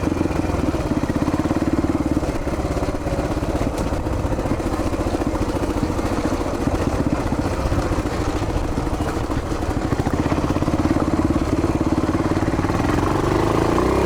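1981 Yamaha XT500's air-cooled single-cylinder four-stroke engine running steadily under way on a dirt track, each firing pulse distinct, the pitch lifting slightly near the end.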